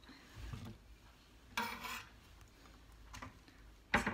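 Chef's knife slicing a tomato on a wooden cutting board: a few scattered soft taps and scrapes of the blade on the board, then a sharper knock near the end.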